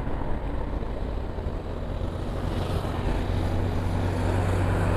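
Road traffic: a car driving past on the street, then a steady engine hum that grows gradually louder as another vehicle approaches.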